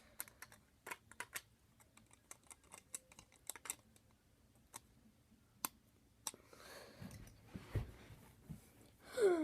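Plastic Lego bricks clicking as they are handled and pressed together: scattered sharp clicks, a few at a time, with a dull thump about eight seconds in and a short falling vocal sound near the end.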